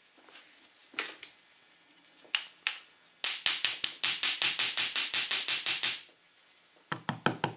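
Small metal lock parts being handled: a few sharp clicks, then a quick run of metallic taps or rattling, about seven a second for nearly three seconds, and a short cluster of clicks near the end.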